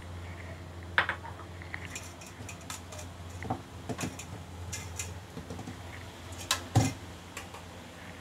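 Kitchen utensils and dishes clinking and knocking now and then. The loudest knocks come about a second in and twice near seven seconds, over a low steady hum.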